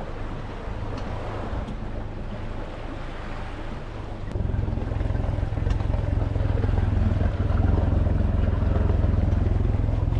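Honda four-stroke outboard motor driving a small boat under way, a steady low rumble that gets louder about four seconds in.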